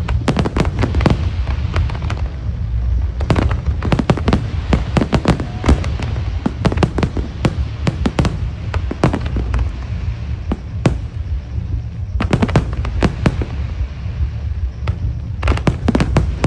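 Aerial fireworks display: a rapid run of bangs and crackling bursts over a steady low rumble, coming in dense volleys about three seconds in, about twelve seconds in and near the end.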